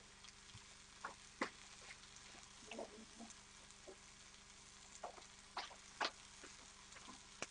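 Quiet kitchen with a low steady hum and about half a dozen faint, scattered clicks and light knocks of kitchenware being handled. The two sharpest come a little after halfway through.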